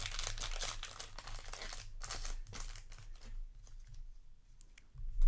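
Foil Magic: The Gathering booster pack wrapper crinkling and tearing as it is ripped open, for the first two seconds or so. Then quieter handling of the cards, with a dull thump near the end.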